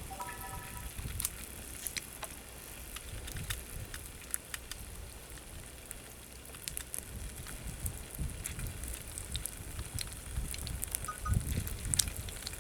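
Gammon and an egg frying in a pan, fat spitting in scattered crackles and pops over a low rumble.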